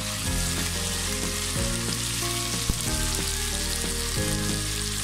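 Diced onions with ginger and garlic paste sizzling in oil in a pan on medium heat, stirred with a spatula.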